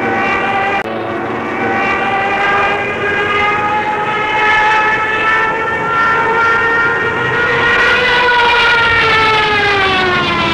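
Propeller plane's piston engine droning steadily, its pitch creeping up for most of the time and then falling away over the last couple of seconds as the plane flies off.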